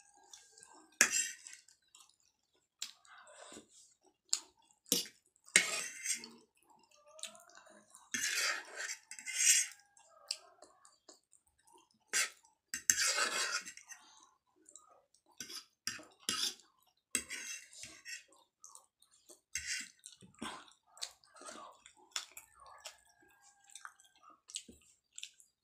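A metal fork clinking and scraping against a ceramic plate, in sharp irregular taps, while a mouthful of chicken chow mein is chewed in between. Longer scraping or slurping noises come at about eight to ten seconds in and again around thirteen seconds.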